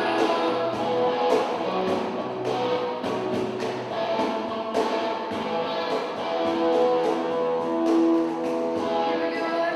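Live worship band playing an instrumental passage: electric guitar chords and sustained notes over a steady beat of drum and cymbal hits, with no vocal.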